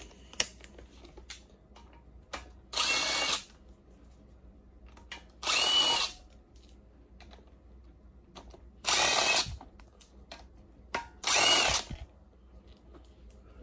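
DeWalt cordless drill spinning a socket on an extension, run in four short bursts of about a second each with a steady motor whine, backing out the oil pump bolts on an LS V8 (LQ9) block. Faint clicks of handling fall between the bursts.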